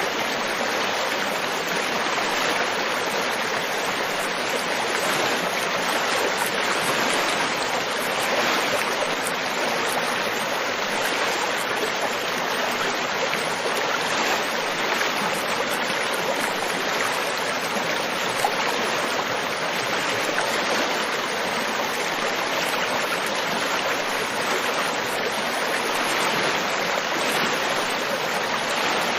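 River water flowing over rocks: a steady, even rushing and babbling.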